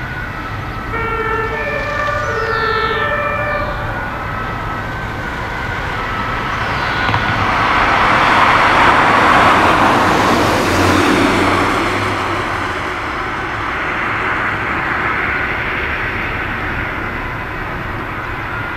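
Ambulance two-tone siren sounding at a distance, its alternating steady tones clearest in the first few seconds. A louder rushing noise of passing road traffic swells and fades around the middle.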